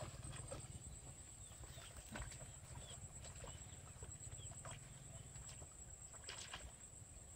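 Faint outdoor background: a steady high-pitched whine, a low rumble, and scattered light clicks and rustles, with a few short bird chirps.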